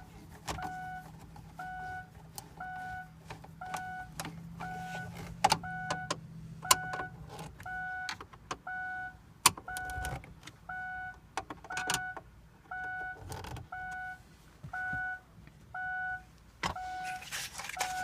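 A car's electronic turn-signal indicator beeping steadily, about two short beeps a second, now that the hazard switch is plugged back in, with clicks and knocks of plastic dash trim being handled and fitted.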